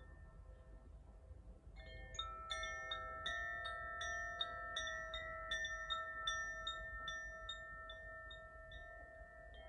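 Wind chime being rung. Faint ringing tones for the first couple of seconds, then a steady tinkle of small strikes at about three a second over long sustained tones, fading away near the end.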